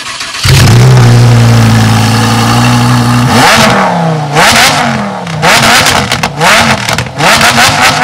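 Lamborghini Huracán's V10 engine starting abruptly about half a second in and holding a steady high idle, then revved up and down repeatedly from about three seconds in.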